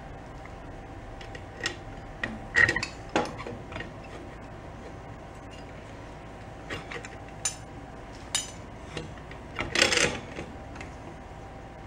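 Metal parts being handled on a workbench: scattered clinks and knocks of a steel bracket, CVT clutch pulley and hardware against the engine and gearbox. There is a cluster of clinks about two and a half to three seconds in, and the loudest clatter near ten seconds.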